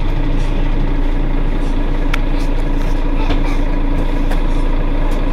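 Mercedes-Benz Citaro C2 city bus engine idling with a steady low rumble and hum, while the bus stands with its doors open.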